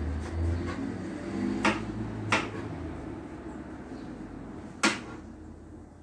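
A knife knocks sharply on a cutting board as pumpkin is peeled and cut. There are two knocks less than a second apart, then a third about two and a half seconds later, over a low steady hum.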